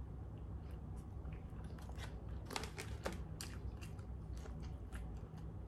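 A person chewing and biting into a hot dog in a bun, with many small irregular mouth clicks over a low steady hum.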